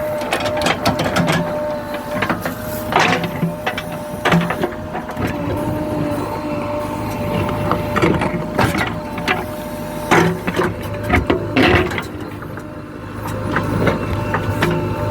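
JCB 3DX backhoe loader working: the diesel engine runs steadily under a steady whine, with irregular knocks and clanks from the digging gear all through.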